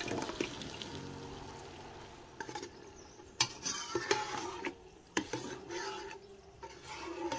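Crushed tomato poured into a hot onion-and-pepper sofrito, sizzling and fading over the first couple of seconds. Then a slotted metal spoon stirs the sauce in an enamel pot, scraping and clicking sharply against the pot.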